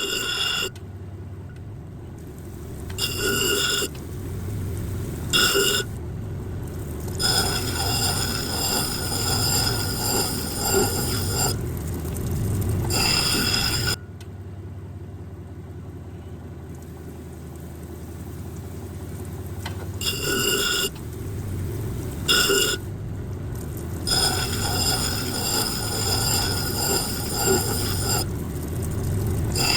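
A 6-inch Kingsley North cabbing machine runs while a malachite face is ground and polished on its wheels. A steady low motor hum carries on throughout, and a high whine cuts out and returns several times.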